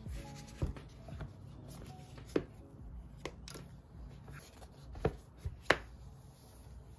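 A plastic trifold folio case being handled and its cover folded shut over an iPad Pro, giving a handful of sharp taps and clicks over soft handling rustle. The loudest click comes near the end.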